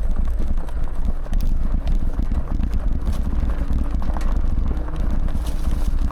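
Off-road e-bike rolling over rough ground: a steady low rumble from the tyres and frame, with the bike rattling and knocking many times a second as it bounces.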